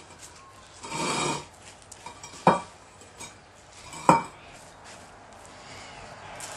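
Pavers being handled on a stack: a brief scrape about a second in, then two sharp clacks of paver knocking on paver about a second and a half apart.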